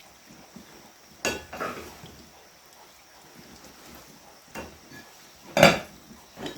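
A handful of short, separate knocks and clatters over a low background, the loudest near the end.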